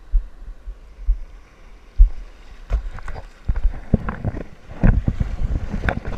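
Sea water sloshing and splashing around a handheld camera in breaking surf, with irregular knocks and thumps on the microphone. It grows busier and louder in the second half.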